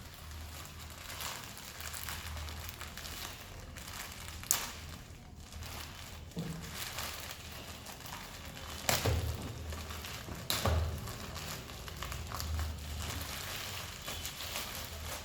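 Phone packaging being handled and unwrapped: uneven crinkling and rustling with low handling bumps and a few sharp clicks, the loudest about 4.5, 9 and 11 seconds in.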